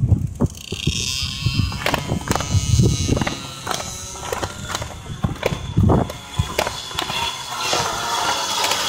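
Small two-stroke pocket bike engines whining as two bikes approach down the straight, growing louder and denser near the end, with wind knocking and rumbling on the microphone.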